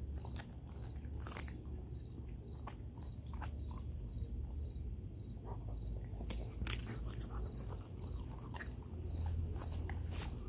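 Belgian Malinois chewing and crunching on a raw whole chicken, with irregular sharp crunches and wet bites. Behind it is a faint, even chirping at about two or three a second.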